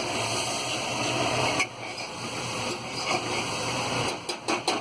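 Onion-tomato masala sizzling as it fries in oil in a pan, a steady hiss that eases after about a second and a half. A quick run of sharp clicks near the end.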